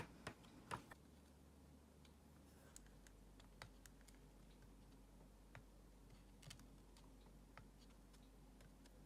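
Faint, scattered clicks and light taps over quiet room tone, with two louder clicks in the first second.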